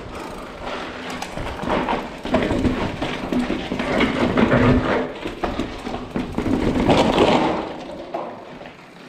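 Trek Fuel EX 5 trail bike rolling over broken glass and rubble and bumping down concrete stairs, with its tyres crunching and knocks and rattles from the bike. It is loudest about halfway through and again near the end.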